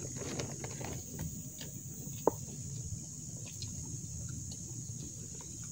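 Insects droning steadily at a high pitch, over soft rustling and small clicks from a plastic food container and bag being handled while eating, with one sharp click a little over two seconds in.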